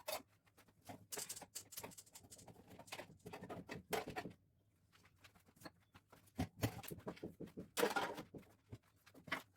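Irregular clatter and rustling of food containers, jars and packets being lifted out and set down while a refrigerator is emptied, with a pause partway through.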